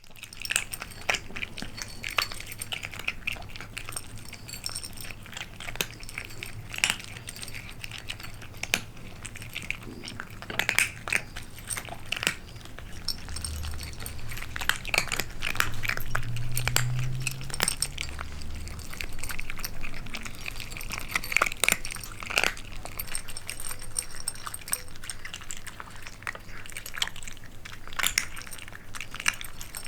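Kittens moving about, with many scattered light clicks, taps and scratches over a low steady hum.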